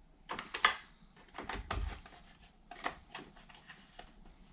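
Short plastic clicks and knocks of a six-cell NiMH battery pack being handled and pushed into the battery compartment of a toy-grade RC excavator's plastic chassis. A few clusters of sharp clicks, the loudest just over half a second in, fading out in the last second or so.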